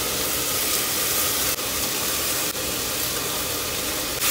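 Seasoned chunks of meat sizzling in hot lard in an open pressure cooker as they brown, a steady frying hiss.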